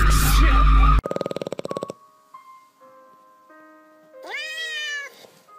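A cat video playing through a phone's small speaker. A short buzzing sound is followed by a few sustained piano-like music notes, then a single meow about four seconds in that rises and falls. The first second is loud outdoor noise that cuts off abruptly.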